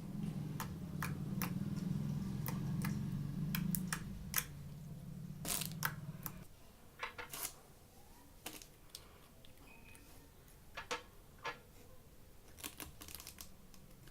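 Slime being squeezed and worked by hand, giving irregular sharp clicks and snaps. A low hum runs under the first six seconds and stops abruptly.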